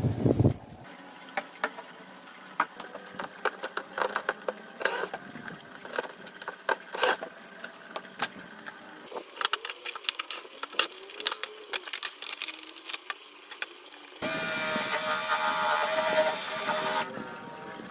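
Light clicks and knocks of hardware being handled, then, about fourteen seconds in, a cordless drill/driver runs for about three seconds with a steady whine before stopping.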